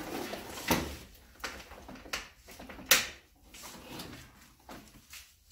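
Handling noises while the cut-off saw's power cord is being plugged back in: scattered knocks and rustles, with one sharp click about three seconds in. The saw's motor is not running.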